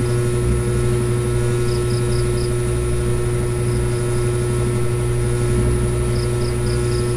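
Steady low hum with hiss, at a fairly high level, and two short runs of faint high ticks, about two seconds in and again near the end.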